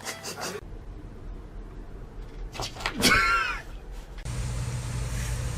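A cat's meow, one short rising-and-falling call about three seconds in, followed by a steady low hum.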